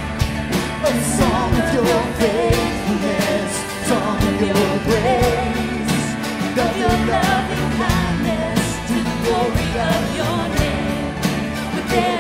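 Worship band music: drums keeping a steady beat under sustained chords, with a wavering melody line on top.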